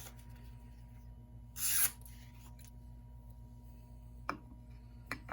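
Pocket knife blade shaving through soft wood in one quick stroke about a second and a half in, followed by two light clicks near the end, over a steady low hum.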